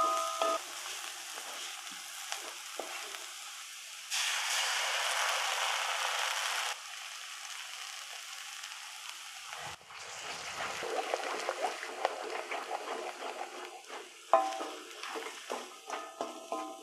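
Vegetables sizzling in hot oil in a metal wok while a wooden spatula scrapes and stirs them. About four seconds in, a much louder sizzle runs for a couple of seconds as eggs go into the hot pan. From about ten seconds on there is quick, repeated scraping as the eggs are scrambled into the vegetables.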